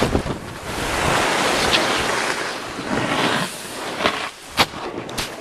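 Snowboard wipeout: the fallen rider and board slide and scrape across the snow with a long rough hiss, mixed with wind on the microphone. Three sharp knocks follow near the end.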